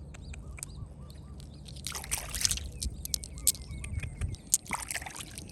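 Small birds chirping in short repeated calls, with scattered clicks and two brief hissing noise bursts, about two seconds in and near the end.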